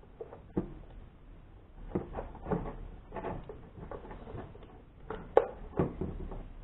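Light clicks and scrapes of a screwdriver tip prying at a plug set in the plastic base of a Braun juice extractor, with small knocks as the housing is handled; the sharpest click comes a little after five seconds in.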